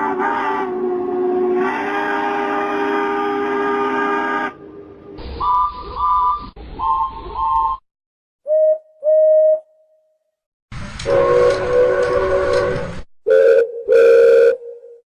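A series of locomotive whistle and horn blasts, one after another. It opens with a long chord blast of several tones, followed by short toots in pairs with silent gaps. About eleven seconds in comes another long chord blast, then two more toots.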